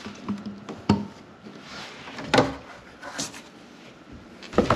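Bass boat's storage hatch lid being handled and opened: a few separate knocks and thuds, the loudest about halfway through.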